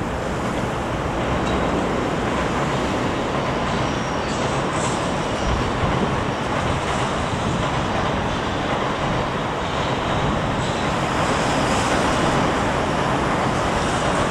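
Steady wash of urban rail and road traffic noise along a busy railway corridor, with trains running on the tracks below mixed into the city traffic rumble. It grows slightly louder after the first second or two.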